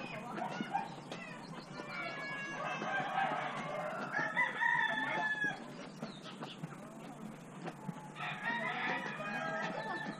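Chickens: a rooster crowing, with long drawn-out crows a few seconds in and again near the end, amid clucking.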